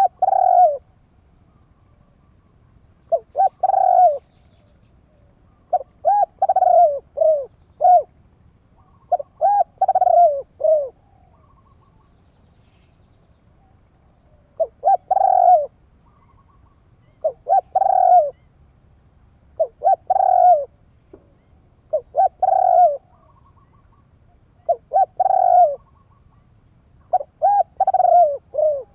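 Spotted dove cooing: a repeated phrase of a few short, rounded coos, given about every two to three seconds.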